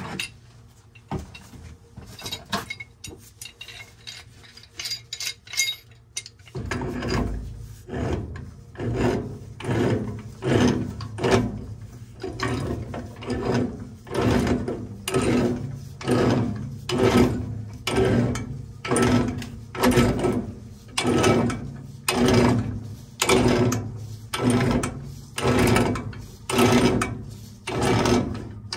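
Threaded black-iron steam pipe fitting being tightened onto a doped nipple with a pipe wrench: a few scattered clicks at first, then from about six seconds in a steady rhythm of grinding metal-on-metal strokes, a little more than one a second, as the threads are turned in.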